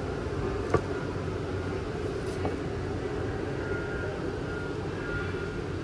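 Steady low rumble and hum of a large store's background, with a single sharp tap about a second in.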